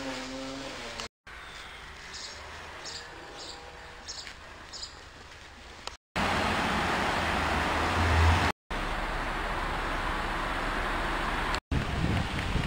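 A few short outdoor clips cut together. A quiet stretch with a few faint ticks gives way, about six seconds in, to a loud, steady rushing noise with a low swell. About a second before the end, water starts rushing down a narrow concrete channel.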